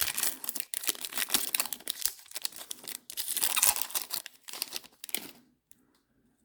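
Foil trading-card pack wrapper being torn open and crinkled. The crackling stops about five seconds in.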